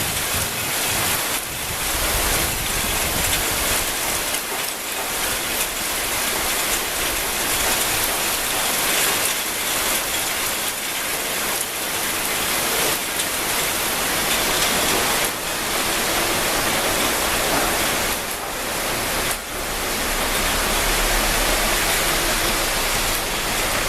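Rain falling steadily: a dense, even hiss of drops, with a low rumble coming in near the end.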